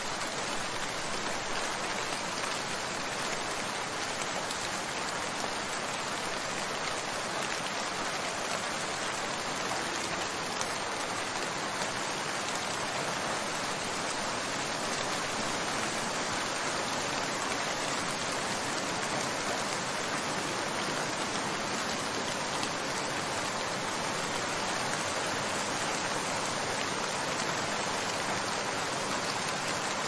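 Steady rain falling, an even hiss of many drops that keeps the same level throughout.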